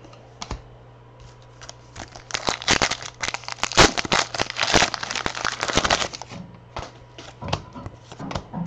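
Wrapper of a Contenders football card pack being torn open and crinkled: a dense run of crackles for about four seconds, starting about two seconds in, then scattered rustles as the cards are pulled out.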